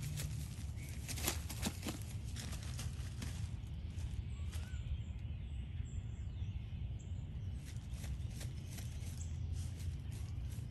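Basenji puppy's paws digging through pine straw: dry needles scratching and crackling in quick irregular clicks, busiest in the first few seconds and sparser after, over a steady low background rumble.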